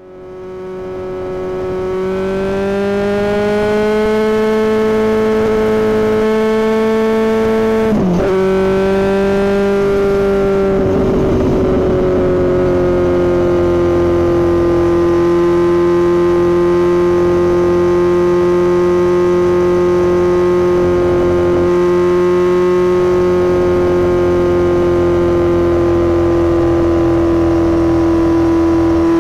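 Motorcycle engine at steady highway speed, with wind rush, fading in over the first few seconds. The engine note climbs a little, dips sharply for a moment about eight seconds in, then holds a steady cruise.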